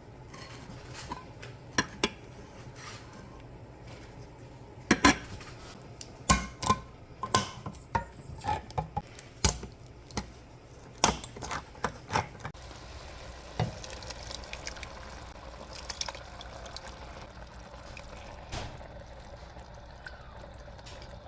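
Kitchen utensils and cans clinking and knocking against a cooking pot while ingredients go in: a run of sharp knocks from about five to twelve seconds in, with quieter handling before and after.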